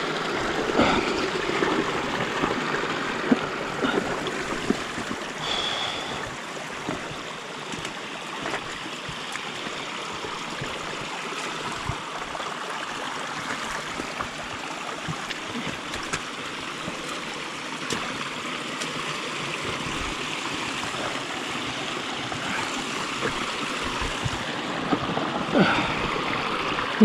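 Water running and trickling down a waterlogged bridleway, a steady rush with scattered small clicks and knocks and a brief high squeak about five seconds in.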